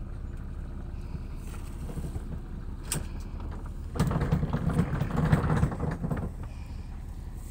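Motor vessel's engine running steadily with a low hum. There is a single click about three seconds in. About four seconds in, the sound grows louder and rougher for roughly two seconds, then settles back.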